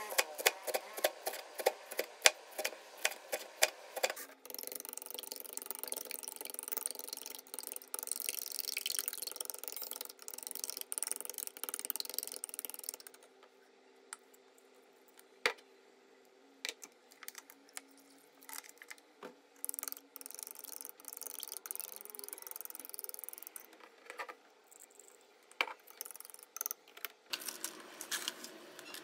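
A chef's knife chops green onion on a wooden cutting board in rapid, even strokes for about four seconds. A steady hiss follows for about nine seconds. After that the sound is quieter, with scattered light taps of wooden chopsticks against a ceramic bowl as eggs are beaten.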